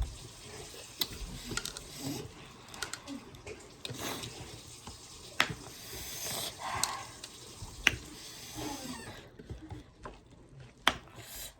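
Close-up mukbang eating sounds of spicy pork: wet chewing and sucking with scattered sharp mouth clicks and a few brief murmurs.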